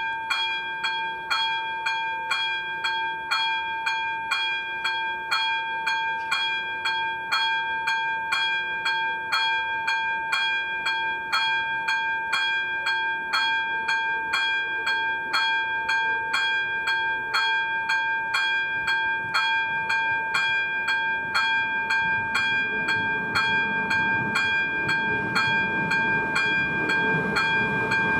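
Second-generation electronic level-crossing bell ringing steadily and fairly loudly, about two strikes a second with a ringing tone, warning that a train is coming. Over the last several seconds the rumble of the approaching train grows louder under the bell.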